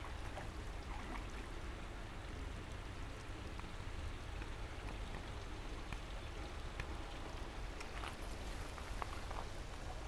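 Spring water trickling and pattering steadily, with scattered small drip-like clicks.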